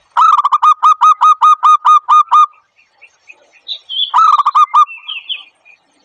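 Zebra dove call: a fast run of about fourteen short hooked notes, roughly six a second, then a shorter run of the same notes about four seconds in. Fainter high chirps from other birds come between and after the runs.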